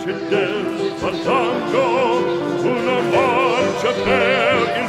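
Operatic singing with a wide vibrato and long held notes, over a sustained musical accompaniment.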